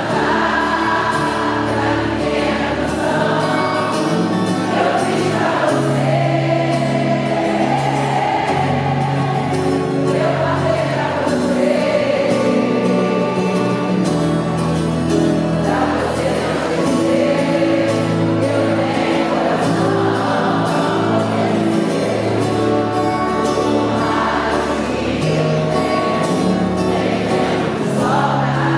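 Live band music with singing: voices singing over a band playing chords and a steady bass line.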